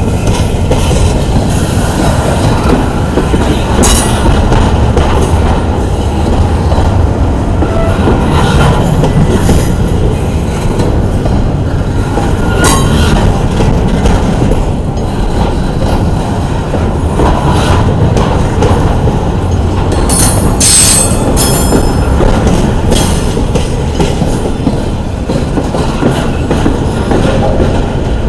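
Intermodal freight train cars rolling past on the rails: a steady rumble and clatter of wheels, with several brief high wheel squeals, the strongest about twenty seconds in.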